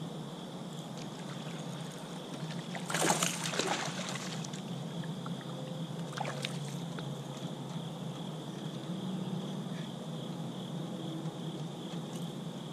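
A small bass splashing at the surface while hooked on a Chug Bug topwater popper, with a loud burst of splashing about three seconds in and a shorter splash about six seconds in.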